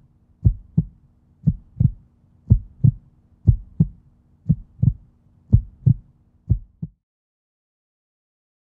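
Heartbeat sound effect: paired low thumps, lub-dub, about one beat a second over a faint steady hum, stopping abruptly about seven seconds in.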